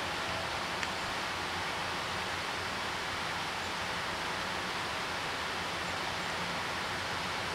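Steady, even outdoor background hiss, with one faint click about a second in.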